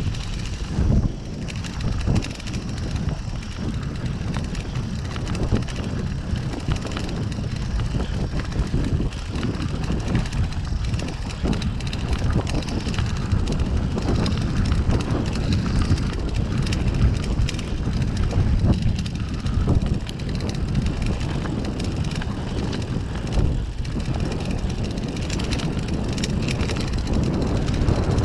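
Mountain bike rolling down a dirt singletrack: steady low rumble of wind and tyres on an action-camera microphone, with frequent short knocks and rattles from the bike over bumps.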